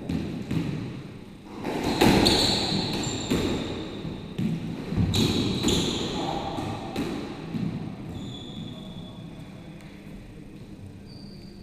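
Squash rally: a squash ball struck by rackets and smacking off the court walls, a series of sharp hits that echo in the enclosed court, the loudest about two seconds in and the later ones fainter.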